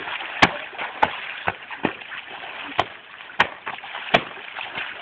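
Pool water splashing and lapping as a dog swims and paddles, with sharp slaps at uneven intervals.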